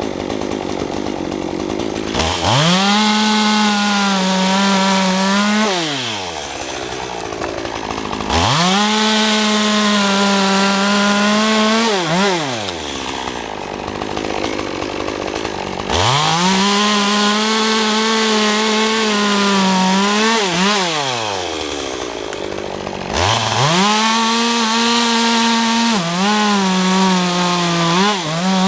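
Chainsaw cutting a fallen oak: the engine is opened to full throttle four times, held steady about four seconds each while it cuts, then falls back to idle between cuts.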